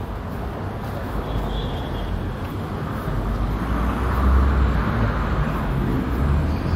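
Steady city street traffic: car and bus engines and tyres on the road, with the low rumble growing louder about four seconds in.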